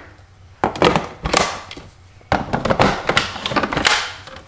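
Two stretches of scraping and knocking on a plastic Ninja Creami pint, about a second and then nearly two seconds long, full of quick sharp clicks, as the container of powdery, once-spun ice cream is handled.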